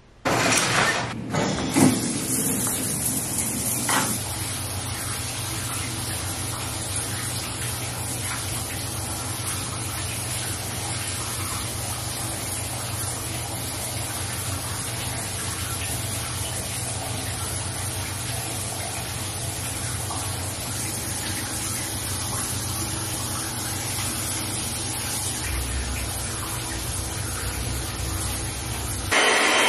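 Shower running steadily, water spraying with a low hum beneath it. There are a few knocks in the first few seconds.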